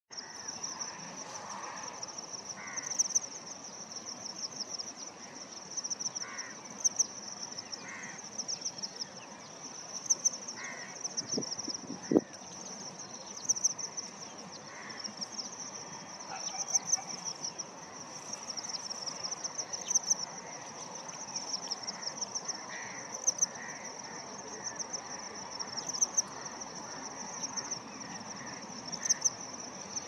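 Steady high-pitched insect chorus, swelling in short pulses about every second or two, with a few faint short chirps underneath and a single sharp knock about twelve seconds in.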